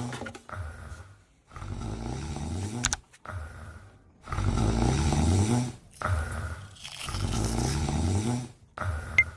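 Loud snoring: about six rattling snores in a row, each about a second or more long and rising in pitch, with short breaths between them. A sharp click comes near the end.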